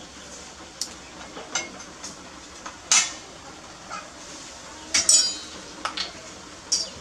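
Kitchenware clinking and knocking on a countertop as bottles, a plate and a cleaver are handled: about six sharp separate clinks, the loudest about three and five seconds in, the one at five ringing briefly.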